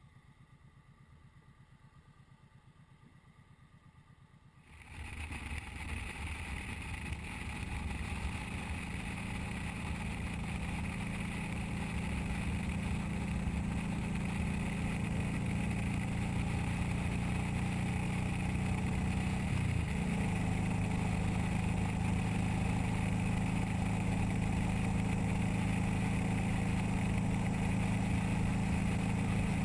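Faint low engine hum at first. From about five seconds in, the steady running sound of a motorcycle at highway speed sets in, engine drone with wind and road noise. About two-thirds of the way through, the engine pitch dips briefly and then settles again.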